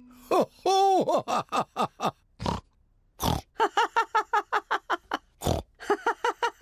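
Cartoon pig characters snorting: a quick run of short pitched snorts, several a second, broken by a few single louder snorts.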